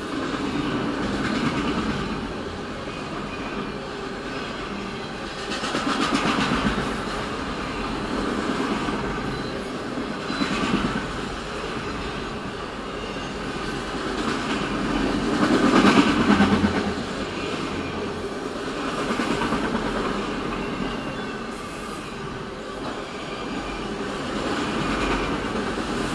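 A freight train of autorack cars rolling past at close range, heard from inside a car: a steady rumble and clatter of steel wheels on the rails. It swells louder every few seconds as wheel sets pass, most strongly about two-thirds of the way through.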